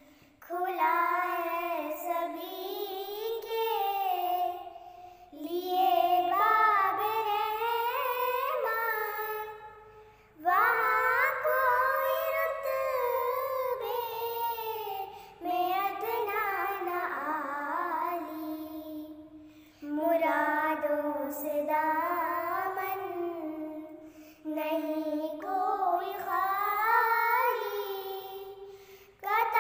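Two girls singing a naat, an Urdu devotional song, together without accompaniment, in sung phrases of about five seconds with short breaks for breath between them.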